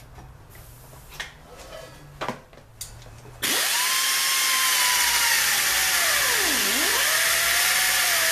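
A few light knocks, then about three and a half seconds in a pneumatic 5-inch angle grinder with a 1 mm cutting disc starts with a loud hissing whine. As the disc cuts into the receiver's steel shell its pitch sags deeply once and recovers.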